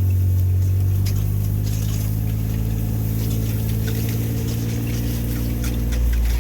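Side-by-side utility vehicle's engine running steadily at low speed with a constant low hum, with scattered faint clicks and rattles over it.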